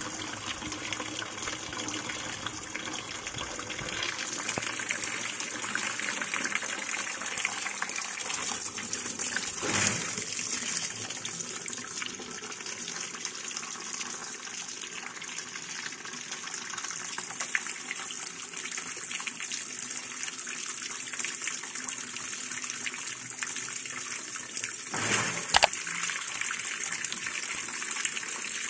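Water gushing steadily into a Sharp ES-U756E washing machine as it fills for a test run. A short knock sounds near the end.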